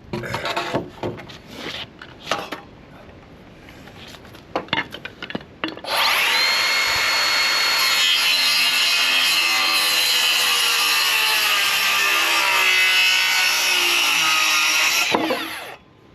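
Scattered knocks of timber being handled, then about six seconds in a power saw spins up and cuts through a length of timber for about nine seconds, with a steady motor whine under the cutting noise. It stops abruptly shortly before the end.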